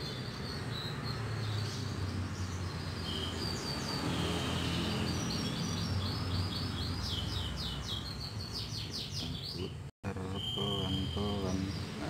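Canaries chirping and trilling, with quick runs of notes and a few short held whistles, over a low steady hum.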